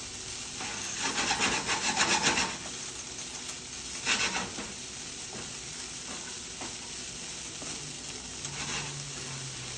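A wooden spatula stirs and scrapes cauliflower rice around a stainless steel skillet over a steady, low sizzle of frying. There is a quick run of scraping strokes about a second in, a brief one around four seconds, and a few lighter strokes near the end.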